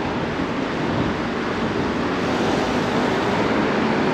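Wind rushing over an action camera's microphone on a moving bicycle, mixed with city street traffic. A low steady hum joins in about halfway through.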